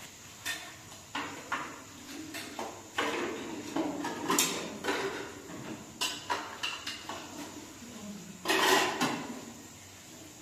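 Irregular knocks and clatters of hard objects being handled, with a longer, louder clatter about eight and a half seconds in.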